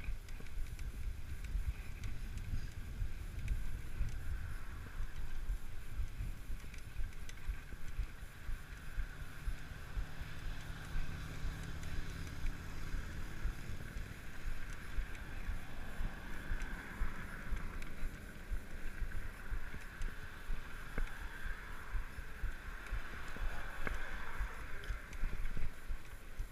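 Wind buffeting the microphone with a steady low rumble as a tandem bicycle rolls along a paved bike path.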